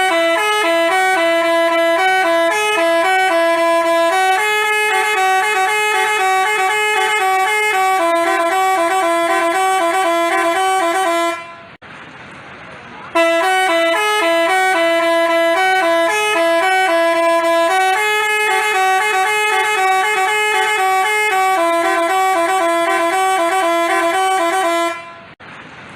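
Basuri telolet bus horn playing a quick melody of stepped notes. The tune breaks off for a moment about twelve seconds in, then plays through again.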